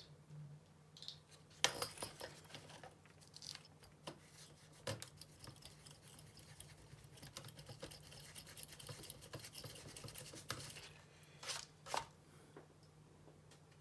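Small laptop parts being handled, with scattered light clicks and a few seconds of scratchy rubbing or brushing in the middle, under a faint steady hum.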